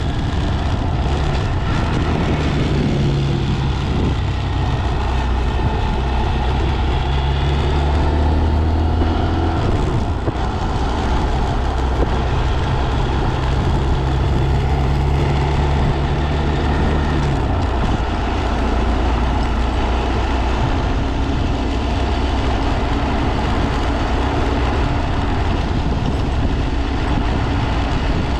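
Honda Monkey 125's small single-cylinder engine running under way, its note stepping up and down several times with throttle and gear changes and dropping lower about two-thirds of the way in, over a steady rush of wind noise.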